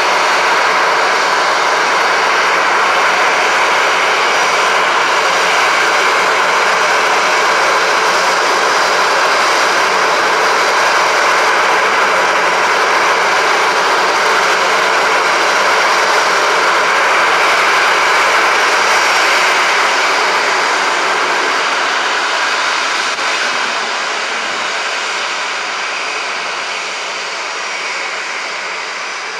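Boeing 737 airliner's jet engines running loud and close. The sound holds steady, then fades gradually over the last several seconds.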